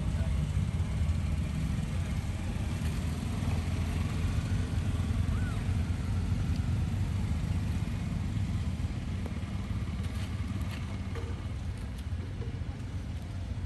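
Steady low rumble, even throughout, with a faint short rising squeak about five seconds in.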